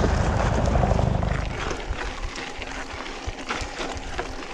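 A loud low rumble that fades about a second and a half in, followed by a mountain bike's tyres crunching over a dirt trail, with scattered clicks and knocks from the bike.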